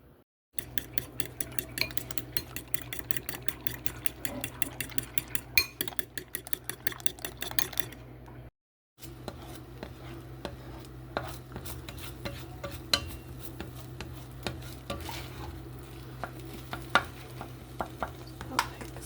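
Eggs being beaten in a bowl with a utensil: a fast, even clicking of about six strokes a second. After a short break come scattered, irregular clinks of the utensil against the bowl, over a steady low hum.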